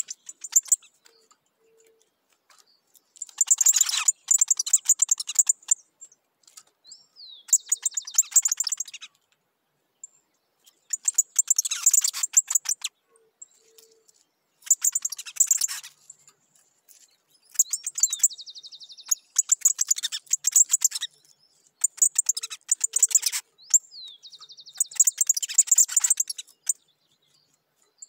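Picahueso singing: repeated bursts of rapid, high chattering notes, each one to three seconds long, coming every three to four seconds. A few phrases carry a short whistled slur that runs into a fast trill.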